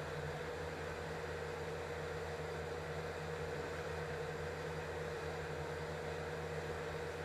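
A steady low hum with a faint hiss, unchanging throughout and with no distinct knocks or clicks.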